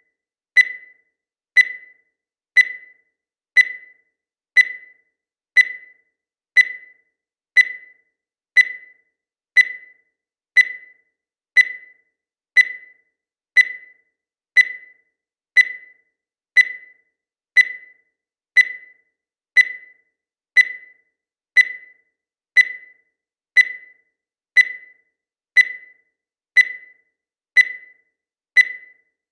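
Digital countdown timer beeping once a second: a steady series of short, high beeps, each starting sharply and fading quickly.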